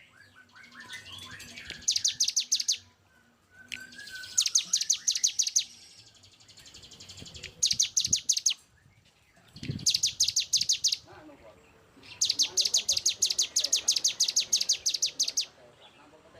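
Songbird singing in harsh, rapid-fire bursts of repeated high notes at about eight notes a second. There are about five bursts, each one to three seconds long and separated by short pauses, with fainter, lower warbling notes between them. This is the fast 'tembakan' song used as master material for training competition songbirds.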